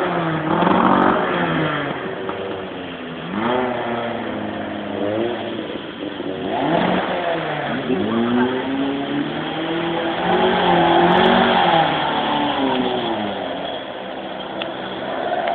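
Classic car's engine revving hard up and down over and over, its pitch rising and falling, as the car is driven through a muddy trial section.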